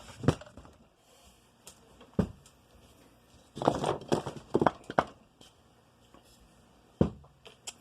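Scattered knocks and clunks as the assembled crankcase of a Yamaha YZ250 two-stroke engine is lifted off its support blocks and handled on the bench, with a cluster of knocks about four seconds in.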